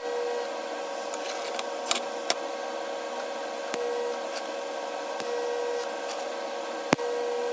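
A steady machine hum under a faint hiss, with a few light clicks and taps scattered through it.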